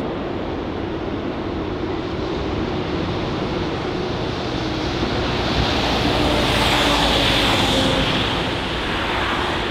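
Airbus A330-300 jet engines on final approach: a steady rumble and hiss, with wind on the microphone. The sound swells louder and hissier about six to eight seconds in.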